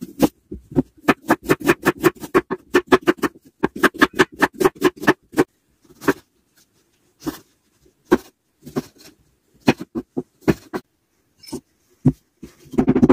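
Cleaver chopping through a red onion onto a wooden cutting board in quick strokes, about four to five a second. This gives way to slower single cuts through tomatoes. Near the end, a wooden pestle pounds in a wooden mortar in a quick cluster of knocks.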